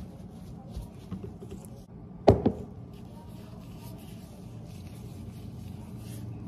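A pump soap dispenser set down on a stone countertop: one sharp knock about two seconds in with a smaller one just after, over light rustling of a cleaning cloth and a low steady hum.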